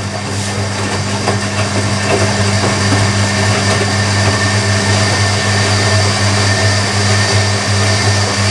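Hoover Electronic A3172 washing machine's motor turning the drum at distribution speed as it goes into spin, a steady hum with a slow pulsing and splashing water in the drum, rising slightly over the first few seconds.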